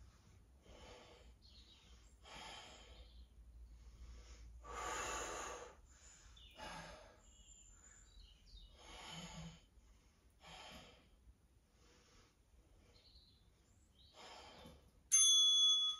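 A woman breathing hard from exertion, with a forceful exhale about every one to two seconds. Near the end a short electronic interval-timer beep sounds, the loudest thing here, marking the end of the work interval.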